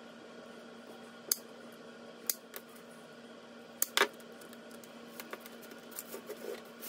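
Tile nippers snapping through penny tiles: several sharp cracks over the first four seconds, the loudest about four seconds in. Lighter clicks of the cut tile pieces being handled and set down follow near the end.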